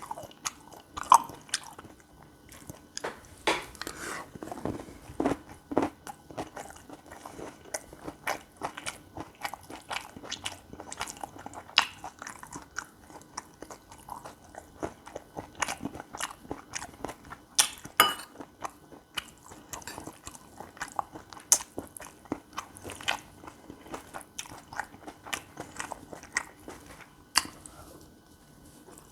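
A person chewing and biting mouthfuls of gopchang fried rice, stir-fried beef intestines with rice, close to the microphone, with many short irregular clicks.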